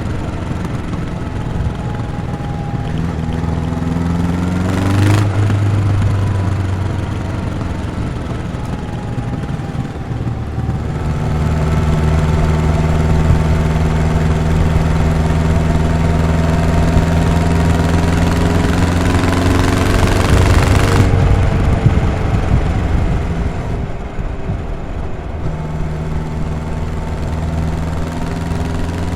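2017 Honda CB 1100 RS's air/oil-cooled 1140 cc inline-four running through its stock exhaust while being ridden. The engine note climbs for the first few seconds, changes sharply about five seconds in, then holds a steady note under a growing rush of noise that cuts off about three quarters of the way through, leaving a lower steady engine note.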